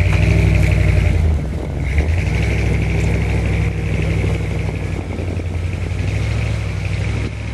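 A Suburban's engine running under load as the truck drives out of deep snow on wheels strapped with Trac Grabber traction devices. It is loudest in the first second or so, then a steady drone that eases a little near the end.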